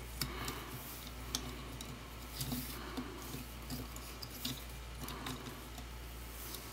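Faint clicks and rubbing as hands adjust the plastic joints of an action figure's legs, trying to make it stand straight.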